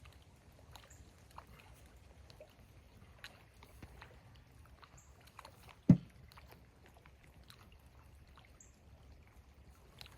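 Faint, irregular ticking of light rain over a low steady hum, with one sharp thump about six seconds in.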